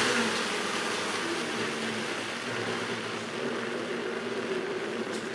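Vitamix blender running a thick chocolate shake, its speed being turned down: a steady motor and churning sound that slowly fades and loses its high end.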